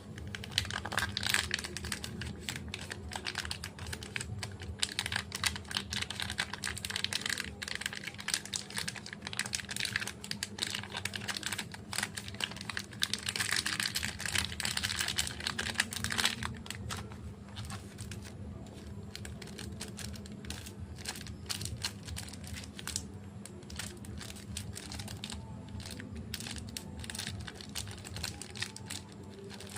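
Wrappers of small chocolate bars crinkling and crackling as they are handled and unwrapped, a dense run of fine rapid clicks. The crackle is busiest about a second in and again around twelve to sixteen seconds in, then softer, over a faint steady hum.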